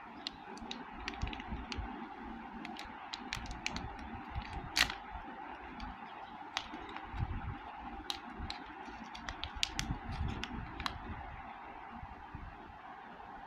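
Crinkling and crackling of a metallic anti-static foil bag being opened and handled by hand: a scatter of sharp crackles, the loudest a little under five seconds in, dying away near the end.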